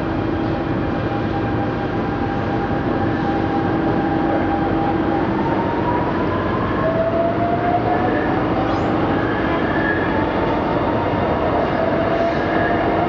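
Shanghai Metro Line 2 train running, heard from on board: a steady rumble of wheels on rail, with the whine of the electric traction motors. Several thin motor tones climb slowly in pitch in the second half as the train picks up speed.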